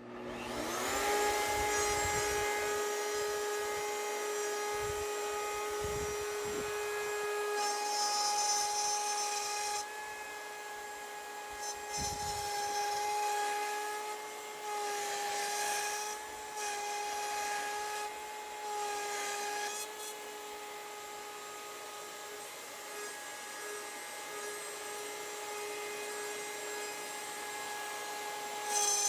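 Router in a router table switched on, spinning up to speed within about a second, then running with a steady high whine. Several times the bit cuts into wood as the workpiece is turned on the circle jig, adding a rising and falling cutting hiss.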